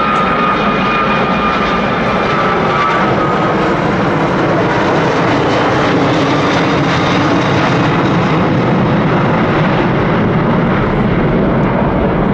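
Airbus Beluga XL's two Rolls-Royce Trent 700 turbofan engines heard during a low flypast: a loud, steady jet rush. A high whine over it sags slightly in pitch and fades within the first three seconds.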